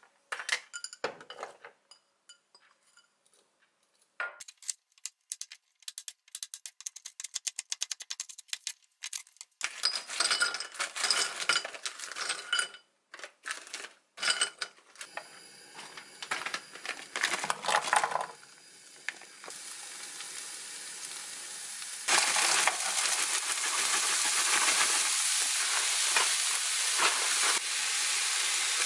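Kitchen cooking sounds: a knife chopping rapidly on a wooden cutting board, then mixed clatter and frying. From about two-thirds of the way in, cauliflower rice sizzles steadily in a frying pan, the loudest sound of the stretch.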